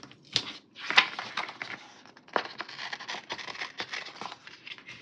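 Paper and sticker sheets rustling and crinkling as they are handled, with many small clicks and taps.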